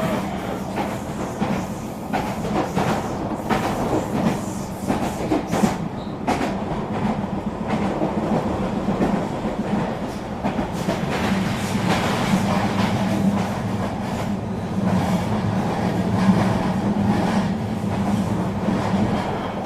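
Electric regional train running along the line: a steady rumble with irregular clicks of the wheels over rail joints.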